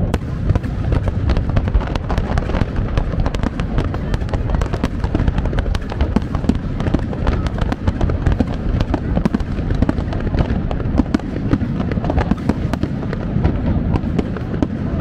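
Fireworks display: many bursts and crackles in quick, unbroken succession over a steady low rumble.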